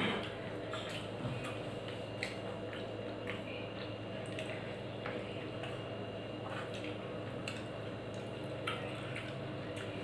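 Eating by hand: fingers mixing rice with curry on a steel plate, heard as scattered soft clicks and small wet sounds over a steady low hum.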